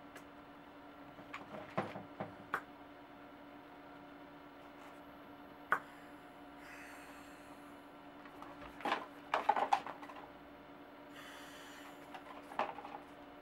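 Bicycle inner tube being inflated with a compressed-air inflator gun: two short hisses of air, one about halfway through and one near the end. Between them come clicks and knocks from the brass chuck, hose and gauge being handled.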